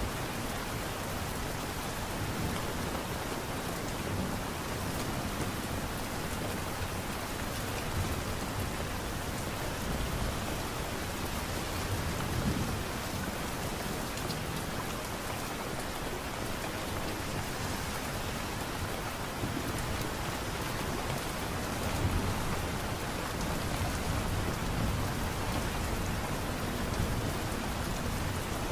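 Steady light rain falling, with a dense patter of drops and a faint low rumble underneath.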